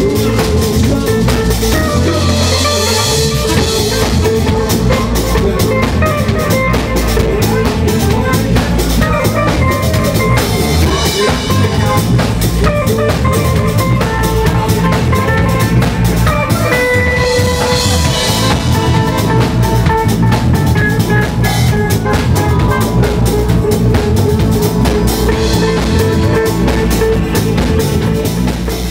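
Live psydub band playing: a steady drum-kit beat with bass and hand percussion under held melodic tones.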